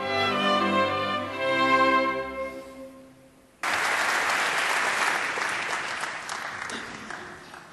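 A string orchestra plays sustained chords that fade away, then about three and a half seconds in an audience suddenly starts applauding, the clapping slowly dying down toward the end.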